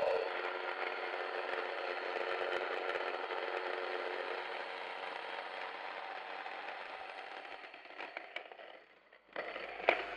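Sana electric stone grain mill running, grinding brown rice into flour between its millstones: a steady motor whir with the crackle of grains being crushed, gradually fading. Near the end, a brief clatter and one sharp knock.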